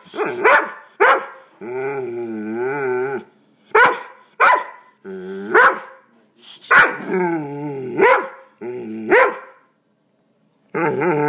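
A dog letting out sharp single barks between long, wavering, growling howls, the odd grumbling noises it makes at an air pump it hates. A short pause comes shortly before the end, then one more long wavering growl.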